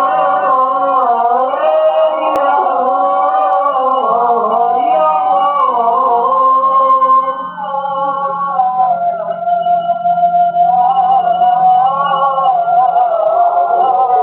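Music with a wavering sung melody over a steady low drone.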